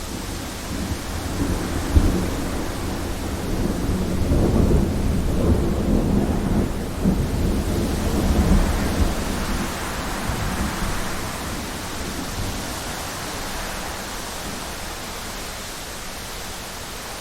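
Thunderstorm: steady heavy rain hiss with a long roll of thunder. A sharp crack comes about two seconds in, then a deep rumble swells and rolls on for several seconds before fading back under the rain.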